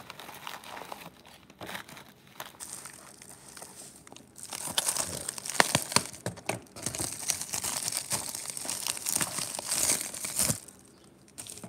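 Paper wrapping crinkling and tearing as plastic coin tubes are pulled out of it, with sharp clicks of the tubes knocking together and being set down. Light at first, then much busier from about halfway in, settling shortly before the end.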